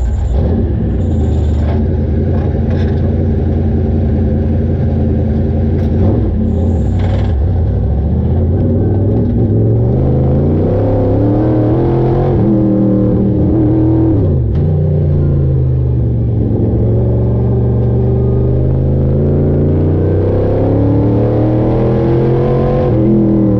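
Pavement modified race car's crate V8 engine heard from inside the cockpit. It holds a steady pitch for the first several seconds, then rises and falls several times as the driver gets on and off the throttle, with sharp drops about halfway through and just before the end.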